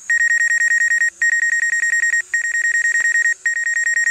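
DJI Mavic Pro flight-app warning alarm: very fast, high-pitched beeping at about fourteen beeps a second, in runs of about a second with brief gaps between them. It signals that obstacle avoidance has been switched off.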